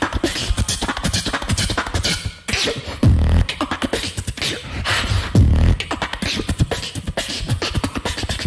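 Human beatboxing through a microphone: fast clicks and snare-like hits over deep bass booms that come every few seconds.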